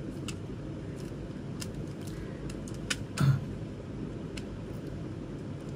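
Plastic CD jewel cases and their booklets being handled, giving scattered light clicks and taps over a steady low room hum, with one louder knock a little past halfway.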